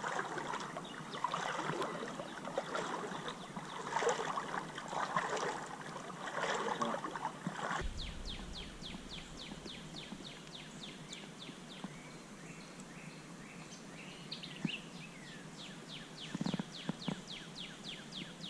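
Footsteps wading and splashing through shallow creek water, irregular clumps about once a second. After an abrupt cut about eight seconds in, it is quieter, with a steady run of short high chirps about four a second and a few low knocks near the end.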